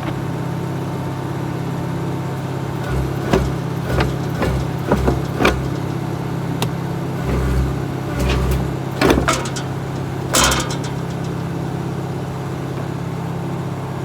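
Excavator's diesel engine running steadily as its derailed track is worked back on, with a string of metal clanks and low thumps from about three seconds in until just past ten seconds.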